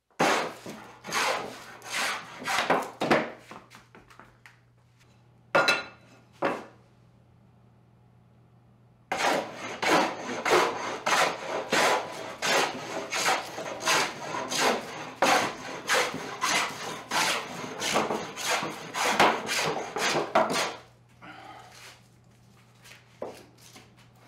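Scrub plane taking heavy, fast strokes across a wide board that is being flattened by hand. The strokes come in runs: a handful, a pause with two lone strokes, then a long steady run of about two strokes a second that stops about three-quarters of the way through.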